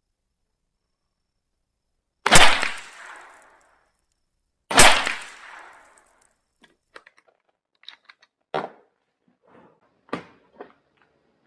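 .22 LR rifle firing two shots of CCI Velocitor high-velocity ammunition about two and a half seconds apart, each with a short echoing tail. Faint clicks and knocks of handling follow.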